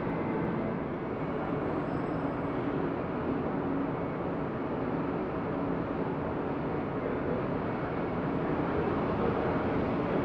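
Boeing 737-900's twin CFM56-7B turbofan engines running at taxi idle as the jet rolls slowly past, a steady engine hum with no change in pitch.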